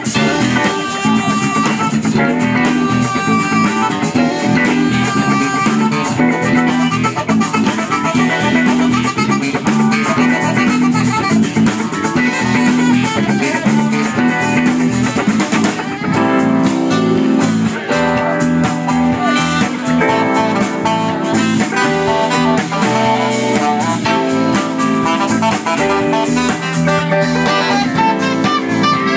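Funk band playing, with guitar over a drum kit beat.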